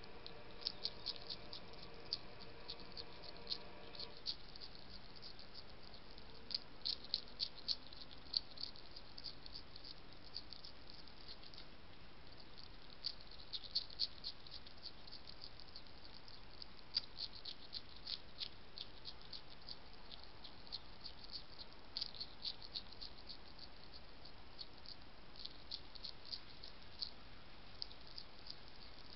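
A European hedgehog crunching food off the ground, heard as bursts of quick, crisp clicks with short pauses between. A faint steady hum with several pitches runs underneath for the first four seconds.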